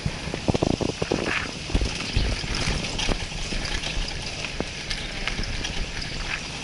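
Wind rushing over an action camera's microphone, with irregular knocks and rattles as the camera jolts over a bumpy dirt track, the knocks thickest in the first couple of seconds.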